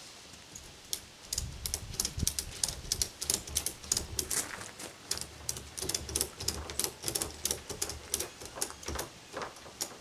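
Kayak tie-down strap and buckle hardware being worked to fasten two kayaks to a bumper-mounted rack: a long run of quick, irregular sharp clicks and rattles over a low rumble of handling.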